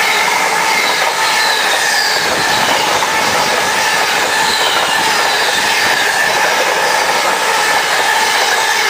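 Container flat wagons of a Freightliner intermodal freight train rolling past at speed: a loud, steady rush of wheel-on-rail noise with high ringing and whining tones from the wheels.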